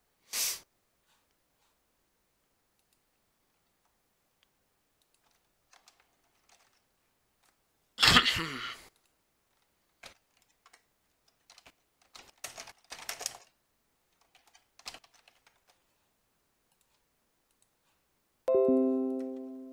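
Sparse computer keyboard typing and mouse clicks, with a louder, brief noise about eight seconds in. Near the end comes a short pitched notification chime that fades away, the alert that a file transfer has finished.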